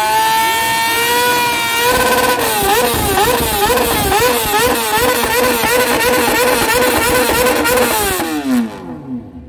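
Motorcycle engine revved hard while standing: the revs climb and hold high, then rise and fall about twice a second as the throttle is blipped over and over, and near the end they drop away.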